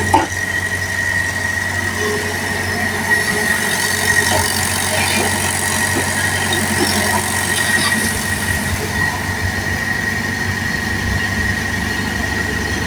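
Mini excavator's engine running steadily, a low hum with a constant high-pitched whine over it and a few faint clicks.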